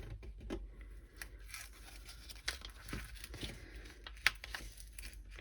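Paper and plastic packaging of a rolled diamond painting canvas crinkling, with small tearing sounds as it is pulled open and unrolled; one sharper click about four seconds in.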